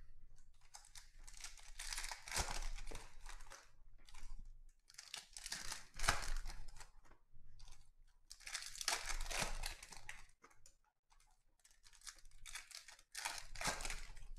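Foil wrappers of 2020 Donruss Optic Football trading-card packs being torn open and crinkled by hand, in bursts of a second or two, several times over.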